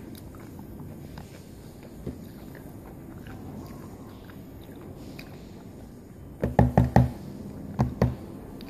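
Nachos being handled and eaten from a plastic tub, over a steady background noise. Near the end come a quick run of about five dull knocks, then two more a second later.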